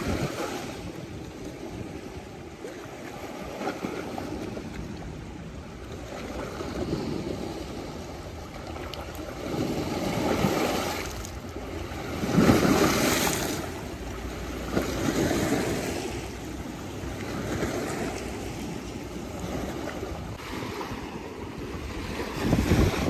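Small lagoon waves washing in and splashing against shoreline rocks, rising and falling every few seconds, the loudest surge a little past halfway.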